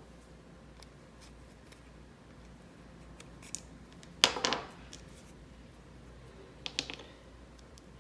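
Plastic gear housing and small gears of a Traxxas EZ-Start starter being handled and fitted together, with one sharp plastic click about four seconds in and a few lighter clicks near seven seconds.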